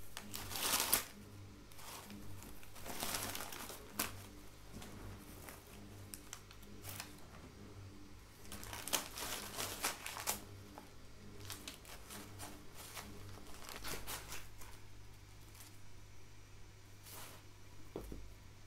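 Crumpled brown kraft packing paper crinkling and rustling in irregular bursts as a cat paws and pushes through it in a cardboard box.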